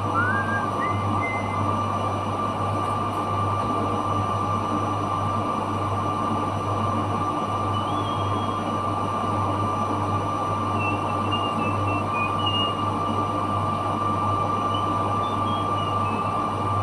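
Steady running noise of dry-cleaning machinery, a constant hum with a high-pitched whine held over it. A few faint short chirps sound about a second in and again about halfway through and later.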